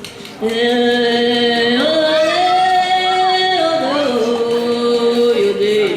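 Music with a singing voice holding long notes that step up and down in pitch, coming in loudly about half a second in.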